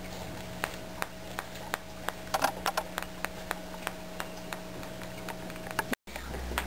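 Struck metal tuning fork ringing with one steady tone while a foam ball hanging on a string ticks against its prongs over and over, about three to four ticks a second, as the vibration keeps knocking it away. The ring and ticking cut off abruptly near the end.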